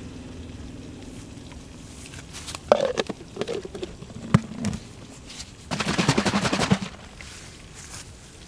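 Plastic lid being fitted and pressed onto a plastic tub: a sharp click, short creaks, another click, then a rapid creaking rattle for about a second as the lid is pushed down onto the rim.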